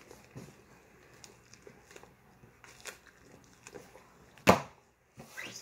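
Handling noise from a pack of chewing gum turned over in the hands: faint crinkles and small clicks, then one sharp knock about four and a half seconds in.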